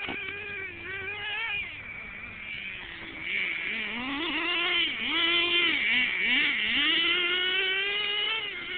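Small nitro engine of a Redcat Racing Earthquake 3.5 RC truck revving up and down with a high buzz. It drops low about two seconds in, climbs again, blips several times, then holds a high steady rev near the end.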